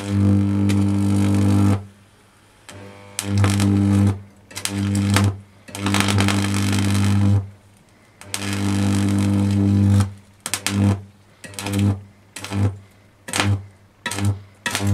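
240-volt mains electric arc being struck between a hand-held probe and a clothes iron's metal soleplate, giving a low, harsh buzz. It comes in bursts of one to two seconds with quiet gaps between, then in shorter, quicker bursts over the last five seconds as the arc is repeatedly made and broken.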